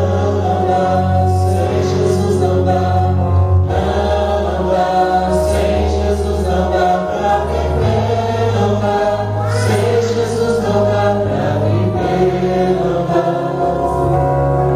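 A choir singing gospel music over sustained instrumental chords and a held bass note that shifts every few seconds.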